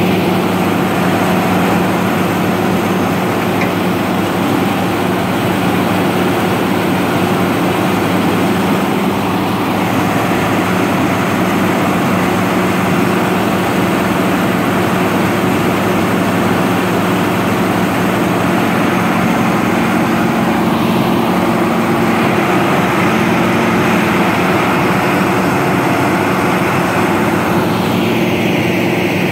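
Vermeer TG400 tub grinder's diesel engine running steadily at speed: a loud, even drone with a constant hum.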